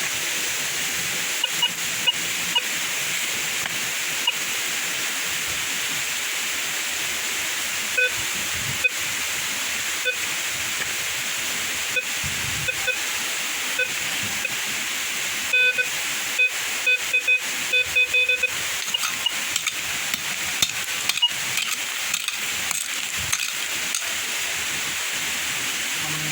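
Steady rushing of a waterfall, with a metal detector giving short beeps as it is swept. About halfway through the detector sounds a quick run of repeated beeps, signalling a metal target.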